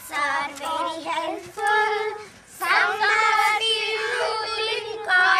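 Children singing a song together, in phrases with long held notes and a short pause about two seconds in.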